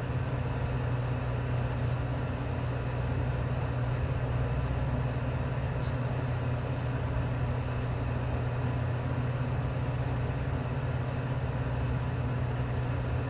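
Chicken kababs deep-frying in a kadhai of hot oil on a high gas flame: steady, even sizzling and bubbling of the oil, foaming up around the egg-coated kababs, over a steady low hum.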